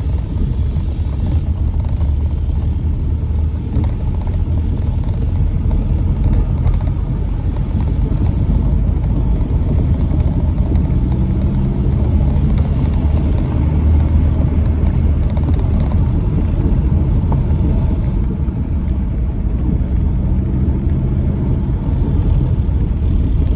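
Steady low rumble of a moving 2012 Kia Carnival minivan, heard from inside the cabin: engine and road noise at cruising speed.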